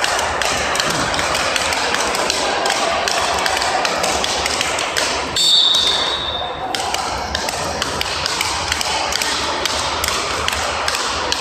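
Speedball rackets hitting the tethered ball around the pole in quick, regular taps, over the hum of a sports hall. About five and a half seconds in, a short high tone sounds and the hitting pauses briefly before resuming.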